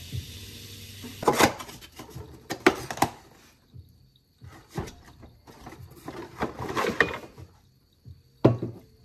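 Kitchen clatter: a series of knocks, taps and scrapes of utensils and dishes on a wooden surface, with a faint frying hiss dying away in the first second.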